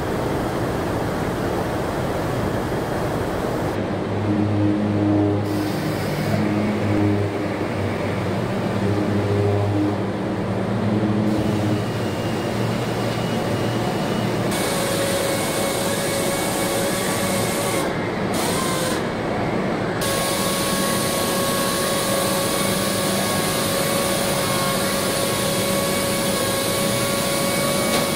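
Car assembly plant machinery: a steady mechanical noise with electric motor hums and high whines, changing abruptly several times.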